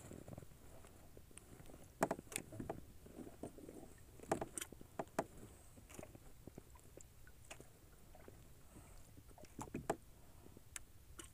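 Faint scattered clicks and knocks aboard a small wooden boat, with a few sharper taps about two seconds, four to five seconds and ten seconds in.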